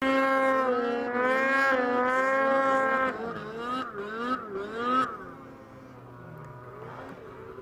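Snowmobile engine running at high, steady revs, then revving up and down in quick swells about twice a second, and dropping to a lower, quieter drone about five seconds in.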